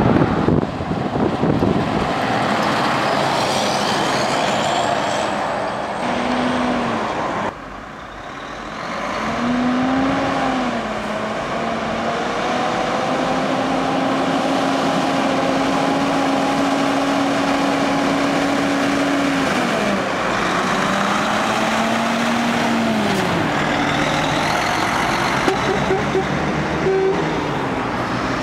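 Heavy trucks driving past and pulling away, their diesel engines climbing in pitch and dropping at each gear change, with one long steady pull in the middle.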